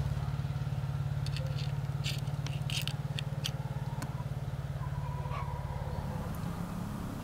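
Light clicks and ticks as a small metal spinner lure with a treble hook is set down on a pocket digital scale, over a steady low hum.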